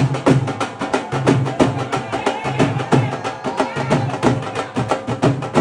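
Music with a fast, busy drum beat: several percussive strokes a second over steady held instrument tones.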